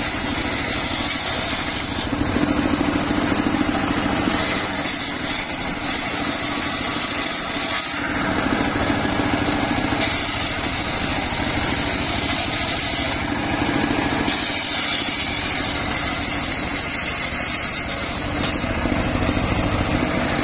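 Homemade circular saw bench ripping waru wood into battens. The blade's high whine comes and goes four times, a few seconds per board fed through, over the steady running of the machine.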